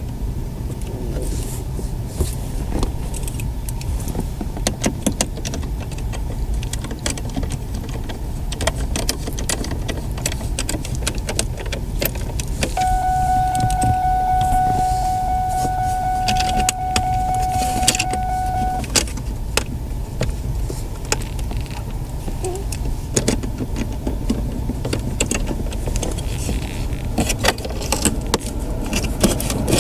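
Clicks, taps and small knocks of plastic dash trim and screws being handled and fitted back in a car's centre console, over a steady low hum. A steady electronic beep-like tone sounds for about six seconds in the middle.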